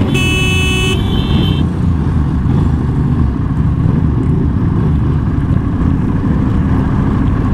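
Engines of many motorcycles idling together in a stopped queue, a steady low rumble. A brief high beep-like tone sounds at the very start.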